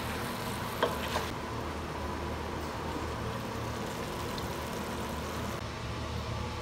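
Wooden spatula stirring a broccoli and chicken stir-fry in a stainless steel pot, with two sharp knocks against the pot about a second in and a faint sizzle, over a steady low hum.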